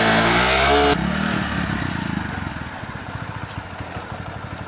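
Motorcycle engine revving, its pitch rising and falling, then cut off abruptly about a second in. After that it runs with a fast low putter that slowly grows quieter.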